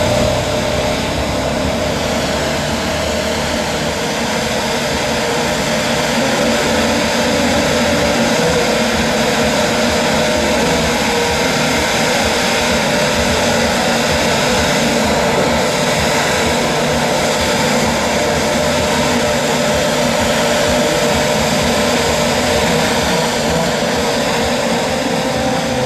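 2013 Formula 1 cars' 2.4-litre V8 engines running at high revs, a loud, dense, steady whine with several held tones and no clear pauses.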